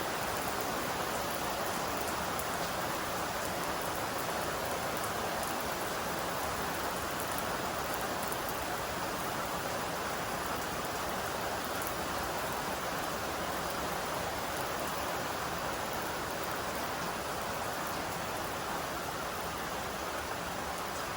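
Steady rainfall, a dense even hiss of drops falling on surfaces.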